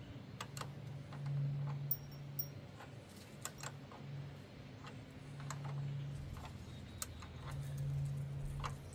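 Light, irregular metallic clicks and ticks of a wrench working a nut on a motorcycle's rear brake master cylinder. Under them runs a low hum that swells and fades every two or three seconds.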